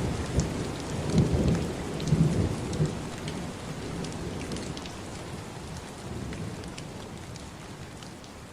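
Rain falling steadily, with fine sharp drop ticks over an even hiss, and a low rumble of thunder rolling through the first three seconds. The thunder dies away and the whole sound slowly fades down.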